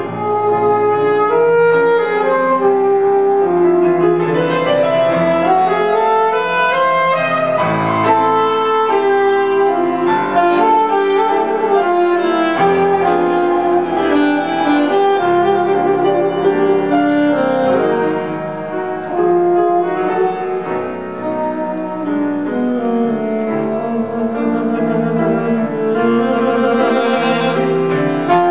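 Saxophone and grand piano playing a classical chamber duet, with a rising run of notes about four seconds in. It grows softer past the middle, then turns to rapid trills near the end.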